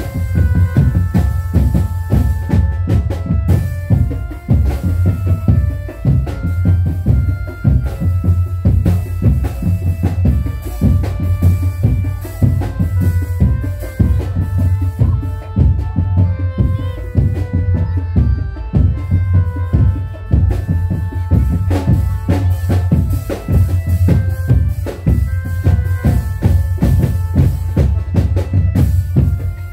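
Loud drum-led music: heavy drums beating fast and steadily under a melody of short held notes.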